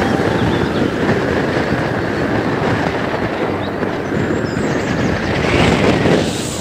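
Steady rumbling wind buffeting the microphone, with the road noise of a vehicle travelling along a concrete road, swelling slightly near the end.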